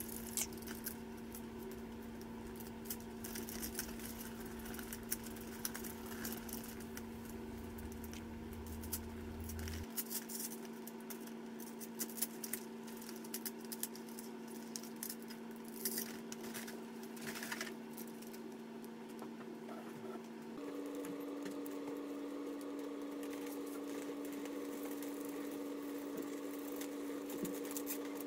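Fingers rubbing and pressing transfer-vinyl lettering onto a clear plastic bubble balloon: light, scattered scratching and tapping sounds. Under them runs a steady low hum that steps up slightly in pitch about two-thirds of the way through.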